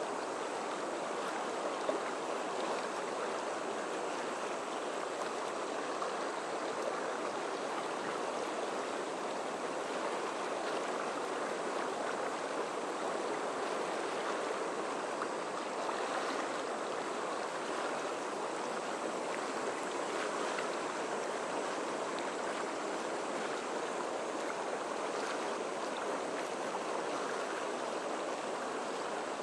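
Fast river current rushing over rapids: a steady, even wash of whitewater.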